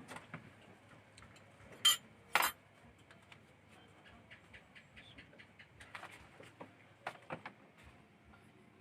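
Tableware clinking: two sharp, ringing clinks about two seconds in, then a run of faint light ticks and taps.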